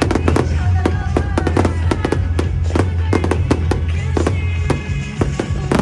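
Fireworks going off in quick succession, with many sharp bangs and crackles, several a second, over music with a steady deep bass.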